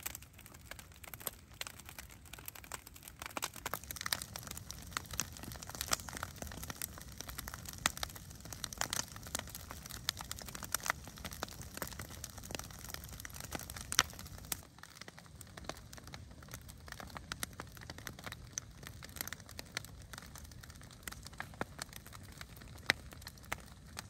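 Large bonfire of uprooted tree stumps and brush crackling, with irregular sharp pops of burning wood and one louder pop about 14 seconds in.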